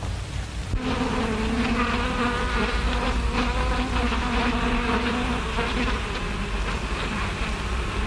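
Swarm of bees buzzing: a steady, slightly wavering drone that starts about a second in, over the hiss of an old film soundtrack.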